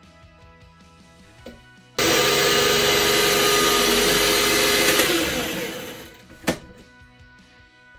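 Small electric food processor blitzing softened cooked figs to a paste. The motor starts abruptly about two seconds in, runs steadily for about three seconds, then winds down, followed by a single click. Background music underneath.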